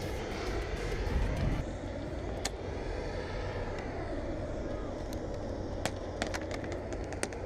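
Wind rumbling on an action camera's microphone, swelling about a second in, with scattered sharp clicks of airsoft guns firing, several close together near the end.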